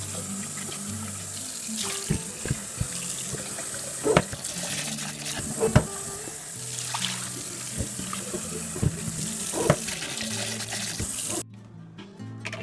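Kitchen faucet running into a glass blender jar in a stainless steel sink as the jar is rinsed, with a few sharp knocks of the jar being handled; the water cuts off suddenly near the end.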